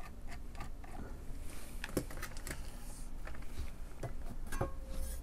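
Small clicks and taps of a screwdriver and hands working the metal case of a TYT TH-9000D mobile radio as its cover screws come out and the cover is freed. Light ticks come about four a second at first, then a few sharper clicks.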